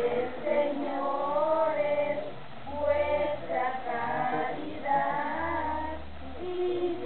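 A group of voices, children's and women's, singing a song together in sustained phrases.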